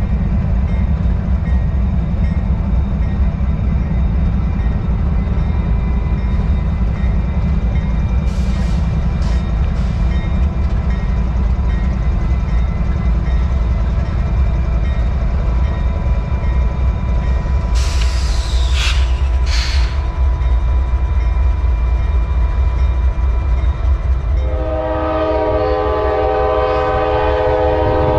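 Diesel locomotive running past with a loud, steady low engine rumble and a few short hisses about two-thirds of the way in. Near the end its air horn sounds several notes at once for about four seconds.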